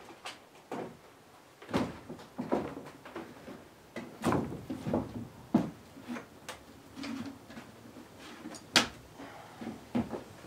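Footsteps on loose wooden planks, with the knocks and bumps of old wooden-framed window sashes being picked up and carried. They come as an irregular run of thuds, with the sharpest knock about nine seconds in.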